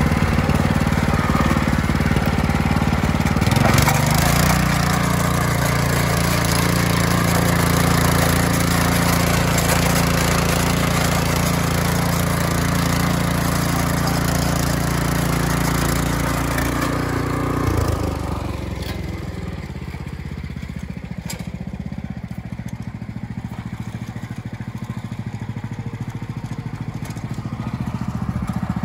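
WEIMA WM500 two-wheel walking tractor's engine running steadily under load while pulling a plough through clay soil. Its pitch drops slightly about four seconds in. About eighteen seconds in, the sound becomes quieter and duller.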